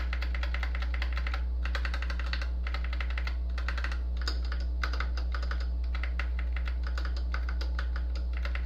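Typing on a Keychron K6 mechanical keyboard fitted with a wooden keycap: quick runs of key clicks with short pauses between them. The wooden keycap makes little difference to the keyboard's sound.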